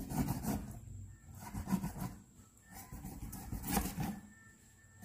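Kitchen knife scoring a whole Asian seabass on a plastic cutting board: several short slicing strokes through the skin and flesh, the blade knocking the board, the strongest near the end.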